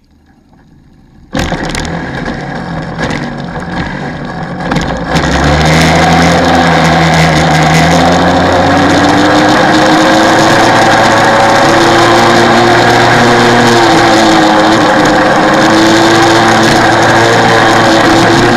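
125cc two-stroke kart engine firing up about a second in and running rough with throttle blips for a few seconds, then running loud and steady as the kart pulls away, its pitch climbing and levelling off with the throttle.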